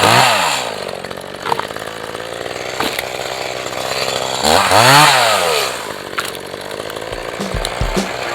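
Echo CS-4010 chainsaw's two-stroke engine falling from a rev to idle, revved once about halfway through, then settling back to idle.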